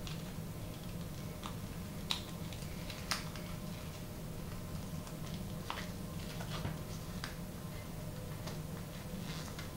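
Folded origami paper units crinkling and ticking as they are handled and their tabs are pushed into each other's pockets. There are scattered soft paper clicks, two sharper ones about two and three seconds in, over a steady low hum.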